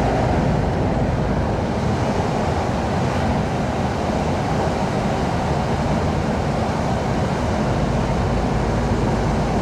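Steady engine and road rumble of an articulated lorry on the move, heard from inside its cab.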